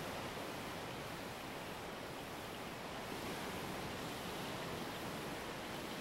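Steady, even rush of ocean surf.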